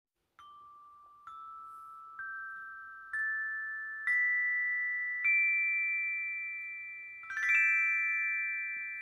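Short intro jingle of bell-like struck notes: six single notes climbing in pitch about a second apart, each left ringing so they pile up, then a quick run of notes about seven and a half seconds in, all slowly dying away.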